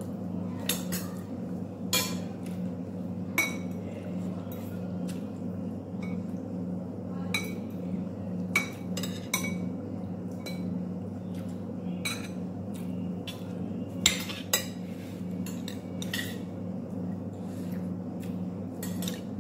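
Metal fork clinking and scraping against a bowl while noodles are eaten, in irregular sharp clicks. A steady low hum runs underneath.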